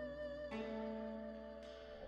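Soft background music of held instrumental notes, moving to a new chord about half a second in.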